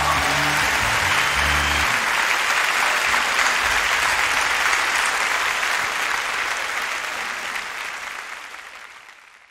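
A large concert crowd cheering and applauding as the last held notes of a song end about two seconds in; the cheering then fades out near the end.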